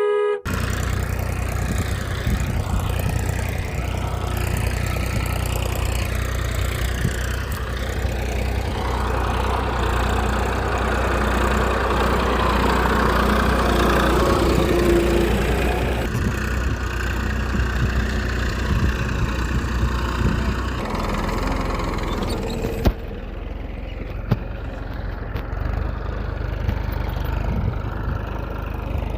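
A small engine running steadily with a low, even hum. It gets louder for a few seconds partway through. A sharp click comes about 23 seconds in, after which the sound is duller.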